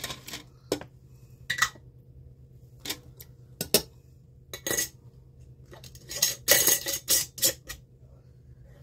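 Glass canning jars and metal lids or utensils clinking and knocking together. Separate sharp knocks come about a second apart, some with a brief ring, then a quicker cluster of clatter near the end, over a faint steady hum.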